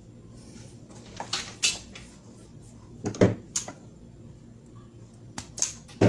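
Scattered sharp clicks and taps of hard plastic and metal parts being handled while wiring a magnetic contactor to a thermal overload, in three small clusters with the loudest about three seconds in.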